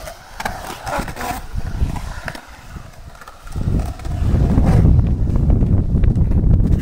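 Skateboard wheels rolling and carving on a concrete bowl, with a few light clicks early on. From about three and a half seconds in, a loud low rumble of wind buffeting the microphone takes over.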